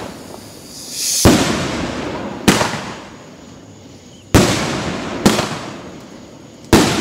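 Aerial firework shells going off: five sharp booms, unevenly spaced a second or two apart, each fading out in a long echoing tail.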